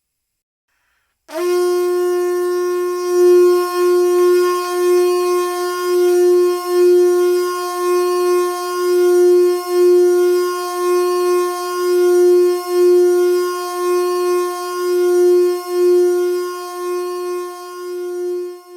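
A single reedy wind-instrument note held indefinitely by the Blukač Endless Processor. It comes in after about a second of silence, then sustains at one steady pitch with a gentle pulsing swell about twice a second.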